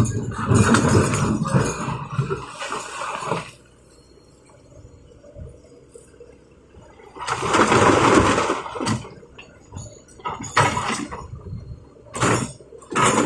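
Rocks and stones dumped from an excavator bucket, crashing and clattering into a dump truck bed in two loud loads with a quieter gap between, then a few shorter knocks near the end.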